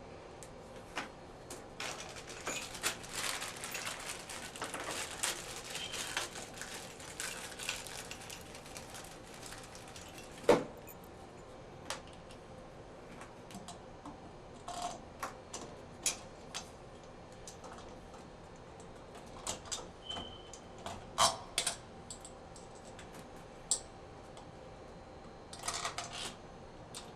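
Light clicks, clinks and rattles of shower valve trim parts being handled and fitted, with a dense run of small clicks at first, one sharp knock about ten seconds in, and scattered clicks after that.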